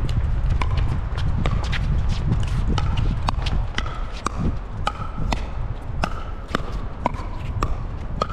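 Pickleball rally: sharp, ringing pocks of paddles striking the hollow plastic ball and the ball bouncing on the court, about two a second. Wind rumbles steadily on the microphone underneath.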